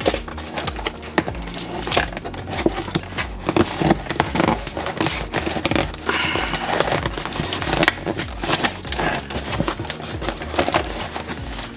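Packaging wrapper being torn open and crinkled by hand, with many irregular sharp crackles, over steady background music.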